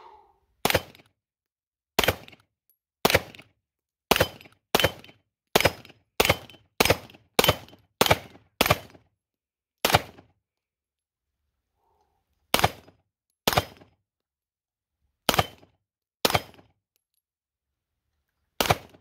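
Canik SFX Rival 9mm pistol firing about nineteen shots. A few come about a second apart, then a quick string of about ten at roughly two shots a second, then slower single shots a second or more apart.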